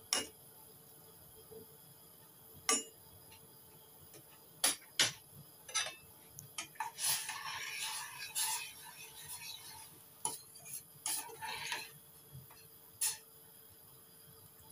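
Metal ladle and spoon clinking against stainless-steel saucepans in about eight separate sharp knocks. In the middle comes a couple of seconds of stirring and scraping through thick chili noodle sauce.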